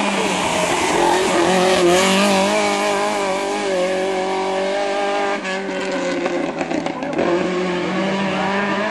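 Rally car engine at high revs through a bend, its pitch rising and falling with the throttle, with a rougher, crackling edge from about halfway through.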